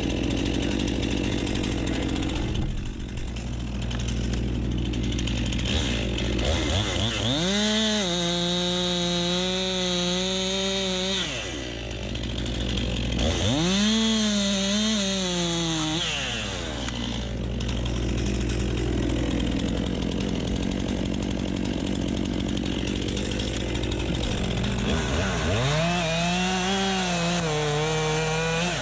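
Stihl MS 261 two-stroke chainsaw idling, then revving up to full speed three times, each for about three or four seconds, before dropping back to idle: felling cuts into a birch trunk.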